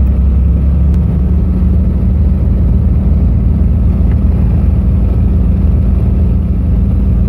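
Twin six-cylinder Continental piston engines of a Cessna 310D running steadily at low power, heard from inside the cockpit as a loud, even drone with a deep pulsing rumble.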